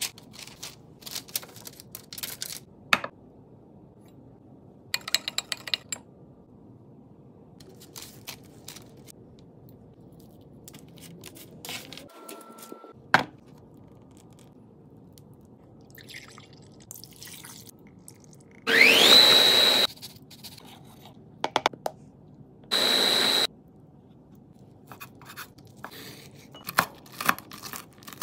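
A string of close-up kitchen sounds: paper rustling and food being handled, a food processor motor whipping goat cheese in two loud pulses (the first winds up to a steady whine, the second is shorter), then a knife chopping candied pecans and dates on a wooden cutting board in a few quick knocks near the end.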